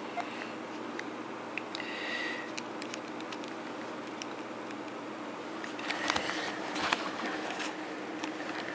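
Steady room tone with a faint hum, broken by a few sharp clicks and handling knocks about six to seven seconds in as a handheld phone and camera are moved about.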